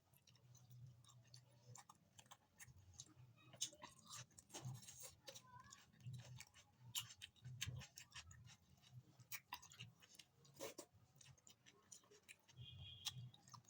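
Quiet close-up eating sounds of someone eating rice and chicken curry: chewing and wet mouth clicks, with many scattered short clicks throughout.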